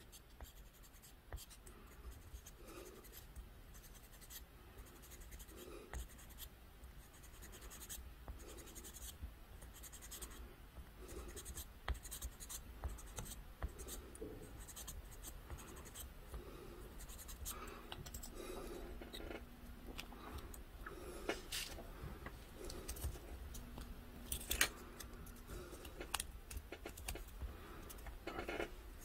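400-grit sandpaper on a sanding block rubbed back and forth over a small plastic model-kit part, a dry scratching in many short, repeated strokes.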